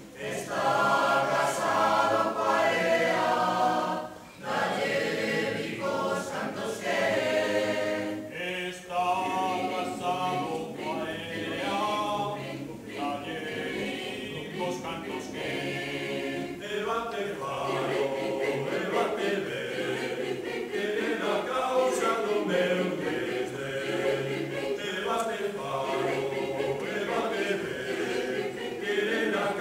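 Mixed-voice choir of men and women singing a cappella, in phrases with short breaths about four and eight seconds in.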